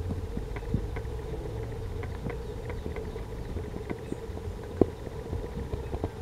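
Steady low background rumble with a constant hum, broken by scattered light clicks, the sharpest a little under a second in and about five seconds in.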